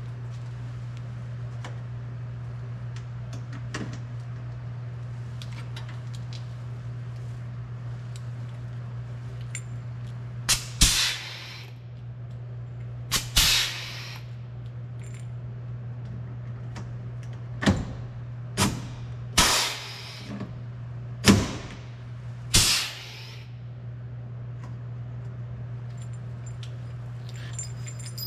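Pneumatic rivet gun setting rivets in a truck cab's sheet metal: about eight sharp snaps, some in quick pairs, each followed by a short hiss of air, starting about ten seconds in, over a steady low hum.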